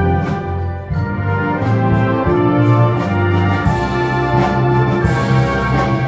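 Military concert band playing live: brass and woodwinds hold full chords over a low bass line, with percussion strikes marking a steady beat.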